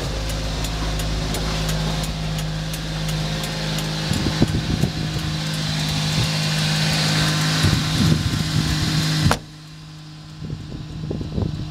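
Mitsubishi Minicab kei truck engine idling steadily, heard close from inside the cab. From about four seconds in there are a few knocks and clatters. About nine seconds in comes a single thump, after which the engine sounds much quieter.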